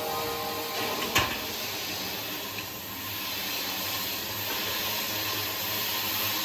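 Flux-cored arc welding: the steady hiss and crackle of the arc running on a vertical joint, with one sharp click about a second in.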